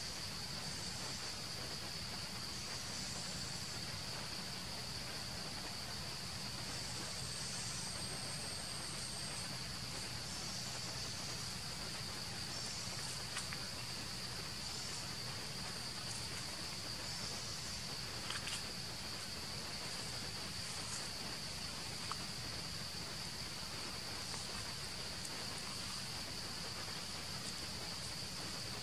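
Steady, high-pitched drone of insects in the forest, with a few faint clicks near the middle.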